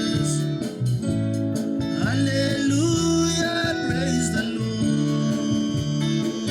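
Live band playing gospel music with a bass line, guitar and a steady beat. A melody line, likely sung, comes in about two seconds in and stops a couple of seconds later.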